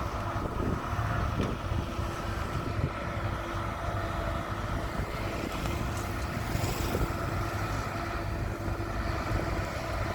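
Diesel engine of a heavy excavator running steadily under work, with a few brief knocks in the first couple of seconds.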